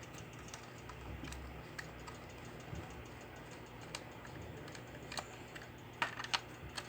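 A few light, scattered clicks and taps of plastic parts being handled while a toy remote control car is taken apart, more of them near the end, over a faint low hum.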